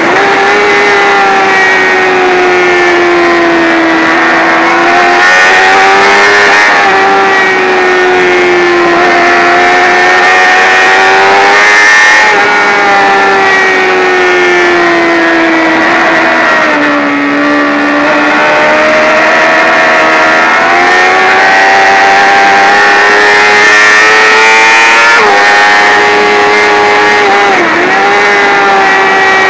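Sport motorcycle engine running hard at high revs on a race track, heard from a camera mounted on the bike over wind rush. The engine note rises and falls with throttle through the corners and dips sharply for a moment near the end.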